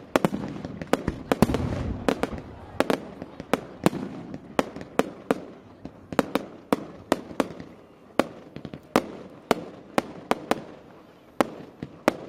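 Display fireworks bursting overhead: an irregular run of sharp bangs and cracks, about two or three a second, with a low rumble under them during the first couple of seconds.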